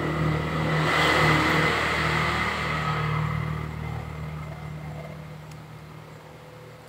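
A motor vehicle's engine running with a steady low hum, loudest about a second in, then fading away.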